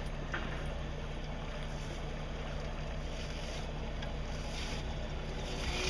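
Fishing boat's motor running at a steady cruising pace, a low even hum, with water rushing past the hull and wind on the microphone.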